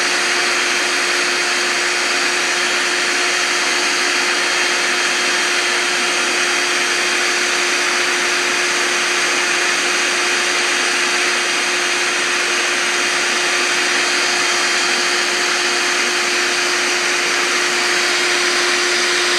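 Vacuum motor running steadily, a constant hum with a strong hiss, without change in speed.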